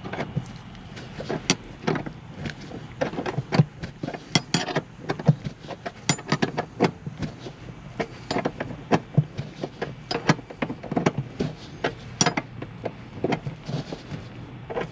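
Box-end combination wrench turning a seat-mounting bolt on the floor pan in short strokes: a string of irregular metal clicks and clinks, a few each second, as the seat bracket is bolted down.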